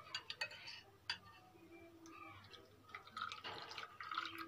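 Milk being poured from a glass onto fruit in a glass serving bowl: a faint liquid trickle that starts about three seconds in. Before it come a few light clicks.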